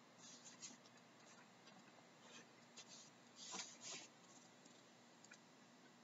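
Near silence with a few faint, short scratchy rustles in the first four seconds, the loudest a little past three seconds in.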